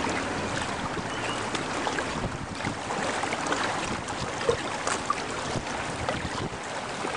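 Steady rush of a fast, choppy river current around a kayak riding through it, with scattered small splashes and ticks.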